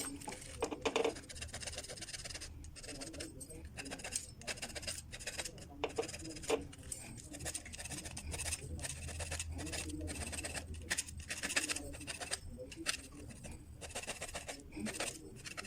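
Irregular scraping, rubbing and clicking of metal parts being handled, as when an electrical contactor is taken apart and its contacts cleaned, over a low steady hum.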